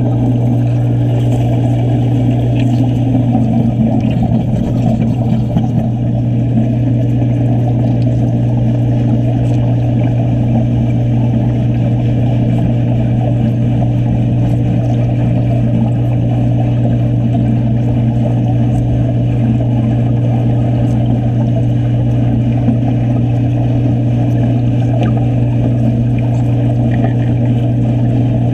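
Underwater wet stick welding: the arc gives a loud, steady low buzz with a rough crackle over it, holding unchanged throughout.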